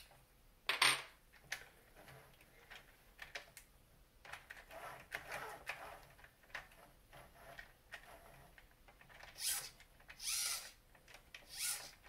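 Faint handling sounds of a plastic RC car wheel being fitted by hand onto its hub: small metal parts clicking, and fingers rubbing on the rubber tyre and plastic. There are a few louder short rubs, one about a second in and two near the end.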